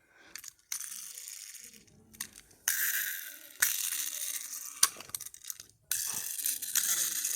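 A small die-cast toy car being handled, giving sharp clicks and rustling scrapes in several short stretches.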